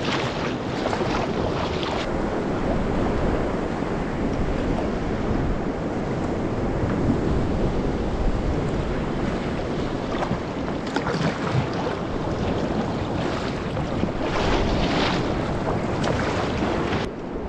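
Wind buffeting the microphone over choppy sea water sloshing and slapping against a sea kayak's hull, with sharper splashes now and then.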